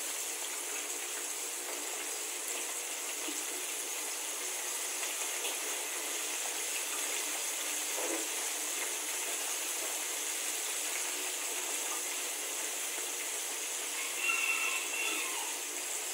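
Hot oil sizzling steadily as breaded squid pieces deep-fry in a saucepan on low heat, a continuous crackling hiss. A brief faint tone is heard near the end.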